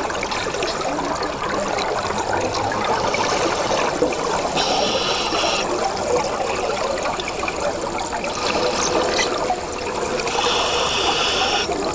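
Scuba diver's breathing heard underwater: steady bubbling and gurgling of exhaled air, with a brief higher hiss about five seconds in and again near the end.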